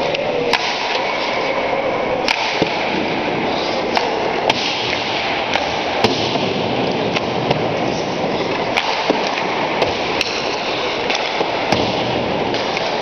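Ice hockey shooting drill: about a dozen sharp cracks of sticks striking pucks and pucks hitting the goalie's pads and the boards, spaced irregularly over steady ice-rink background noise.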